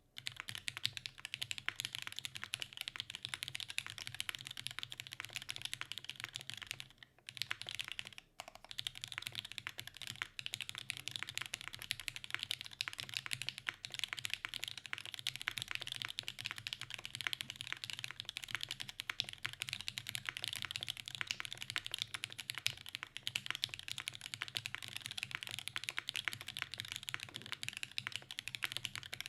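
Fast, continuous typing on a Midway60 custom mechanical keyboard with lubed SP-Star Meteor White switches in an undampened aluminium plate and Domikey keycaps. Two brief pauses fall about seven and eight and a half seconds in.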